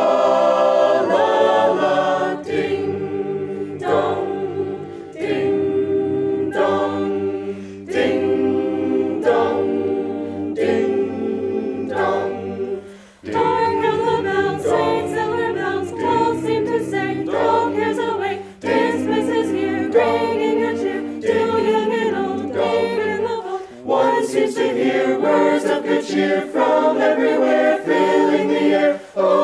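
A cappella vocal ensemble singing a holiday song in close harmony, with rhythmic repeated chords over a low sung bass line that drops out briefly about thirteen seconds in and again near the end.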